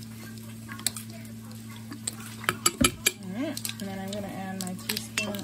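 Sharp clicks and taps of a plastic measuring spoon and a bottle cap against a glass jar while lemon juice is measured in, loudest about halfway through, over a steady low hum. A brief wordless voice sound comes just after the loudest clicks.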